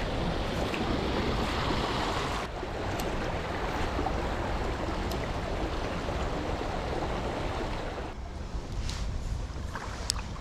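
Steady rushing noise of wind buffeting the microphone over flowing creek water, easing briefly twice, with a few faint clicks near the end.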